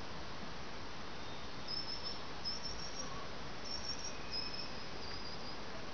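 Steady hiss of open-air background with short, high-pitched chirps coming in small groups every second or so from about two seconds in.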